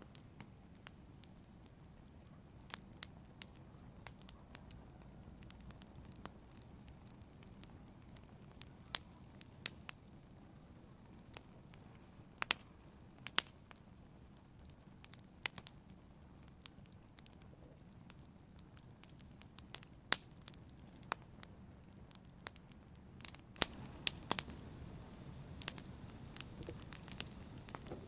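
Logs burning in a fireplace, crackling: irregular sharp pops and snaps over a low, steady rush of the flames. The pops come more thickly in the last few seconds.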